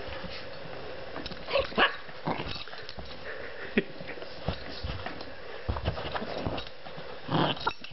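Shih Tzu giving short, scattered barks during rough play. The loudest come about two seconds in and again near the end.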